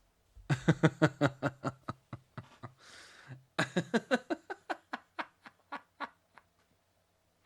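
A man laughing hard: two long runs of rapid laugh pulses that fade out, with a gasping in-breath between them about three seconds in.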